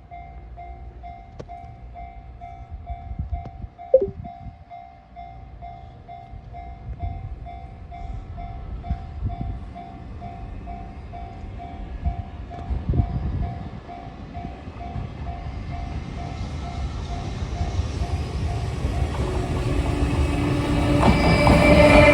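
Japanese level-crossing warning bell ringing at about two strokes a second. Over the last several seconds the EF210 electric locomotive and its freight train approach, growing steadily louder until they drown out the bell.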